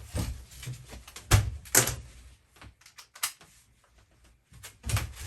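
Irregular knocks and clicks of hand work, several sharp loud ones about a second and a half in and again near the end, with a quieter stretch between.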